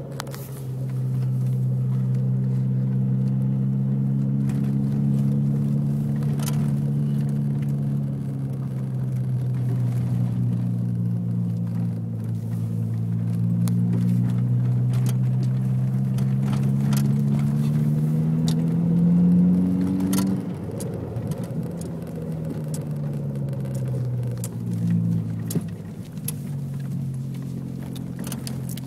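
A 2003 Volkswagen GTI's 1.8T turbocharged four-cylinder engine running under load, its pitch holding steady, then climbing slowly for several seconds and dropping suddenly about two-thirds of the way through, like a gear change, before rising again, with faint scattered clicks and rattles.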